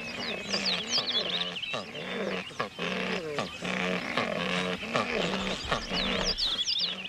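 Secretary birds making low, repeated croaking calls at the nest during courtship, over a chorus of high chirping small birds.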